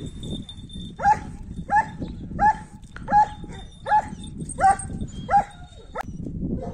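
A dog barking seven times in a steady series, about one bark every 0.7 seconds, each bark short and dropping slightly in pitch.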